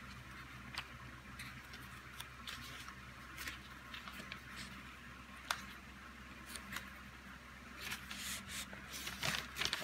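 Sheets of printed paper being handled and flipped through: faint rustles and light clicks, busier near the end, over a faint low hum.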